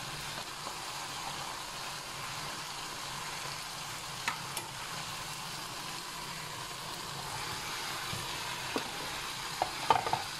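Onion-tomato biryani masala sizzling steadily in a nonstick wok as it is stirred with a spoon. A single knock comes about four seconds in, and a cluster of sharper knocks near the end as fried chicken pieces are tipped in from a plate.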